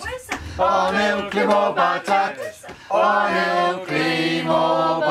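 A group of people singing together unaccompanied, with long held notes and a short break partway through.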